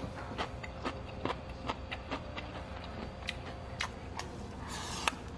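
Chopsticks clicking and tapping against bowls and a stainless-steel rice bowl during a meal, two or three light clicks a second, with a louder clink near the end. A faint steady hum runs underneath.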